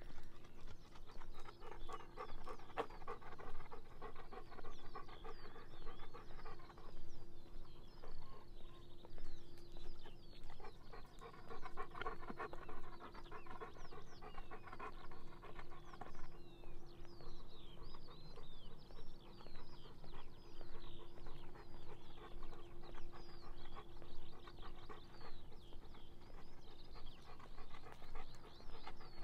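A golden retriever panting in long rhythmic spells, with birds chirping and a steady hum underneath.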